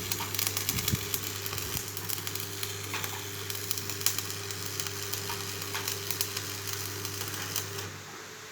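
Electric arc welding: the arc crackles and sizzles steadily over a low electrical hum, and both stop near the end as the arc is broken.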